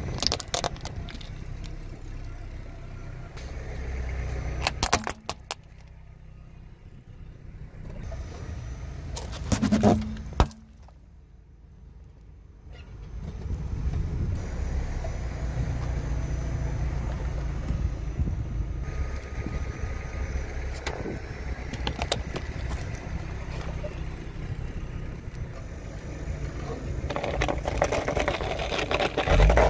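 Car tyre rolling slowly over objects on asphalt over a low engine rumble, with sharp cracks and snaps as plastic items break and squash. Near the end there is a dense crackling as a bucket of water-gel beads is crushed under the tyre.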